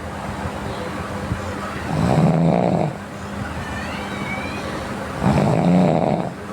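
A sleeping person snoring in a regular rhythm: two long, pitched snores about three seconds apart, with a steady breathy noise between them.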